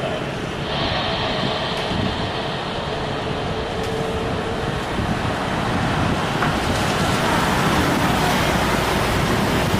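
Jet aircraft engines running: a steady, broad rushing noise that grows slightly louder over the last few seconds, with a faint high whine about a second in.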